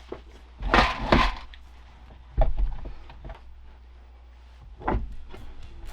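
Four scattered knocks and bumps with rustling handling noise between them, the sound of someone working by hand with tools and wire.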